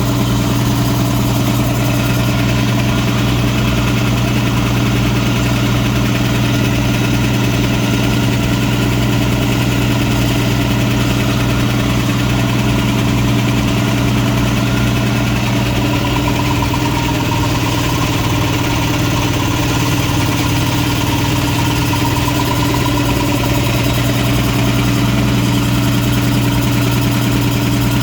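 Homemade air compressor's electric-motor-driven two-stage piston pump running steadily, filling the tanks as pressure builds, with a strong steady hum. A faint higher whine joins partway through and fades again.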